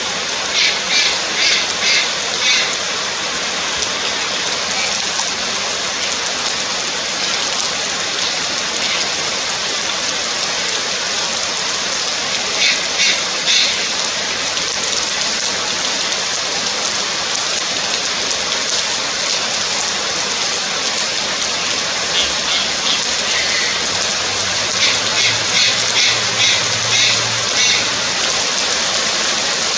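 Juvenile Malayan night heron calling in runs of rapid, repeated high notes. There is a run near the start, a short one in the middle and a longer run near the end, over a steady loud hiss.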